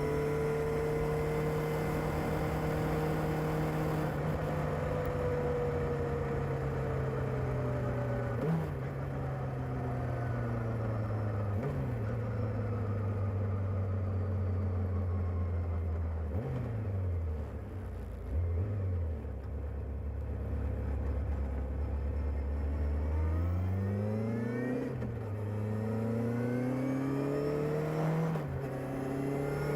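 Kawasaki ZR-7S's air-cooled inline-four on its stock exhaust, under way. The engine note sinks slowly as it slows, with two short rev rises at downshifts about 8 and 12 seconds in, settles low near idle in the middle, then climbs again through the gears with upshifts about 25 and 28 seconds in.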